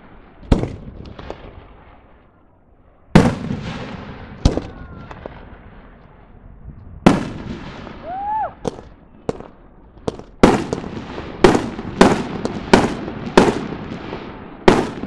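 Aerial firework shells bursting overhead: sharp bangs, each trailing off in an echo. They come a few seconds apart at first, then about every half second to second in the last five seconds.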